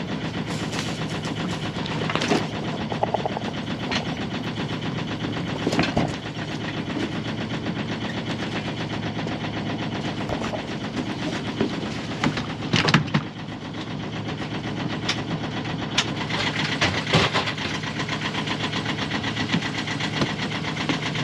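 Sailboat's newly rebuilt inboard engine idling steadily on its first run, with a few sharp knocks and clunks over it.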